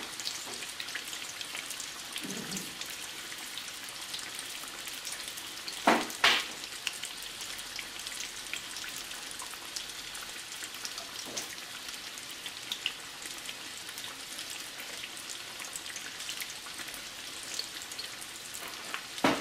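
Breaded chicken legs shallow-frying in bubbling oil in a skillet: a steady sizzle full of fine crackles, with two louder pops close together about six seconds in.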